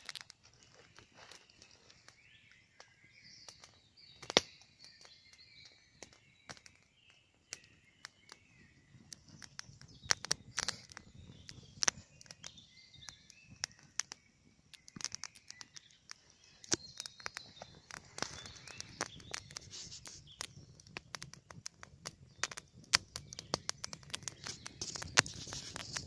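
Songbirds singing in a spring forest before sunrise, faint warbling phrases, over the scattered sharp pops and crackles of a wood campfire that come more often in the second half.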